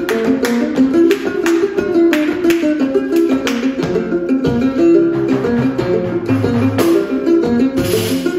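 Son jarocho music played on plucked and strummed string instruments: a quick melody of plucked notes over sharp, evenly repeating strums.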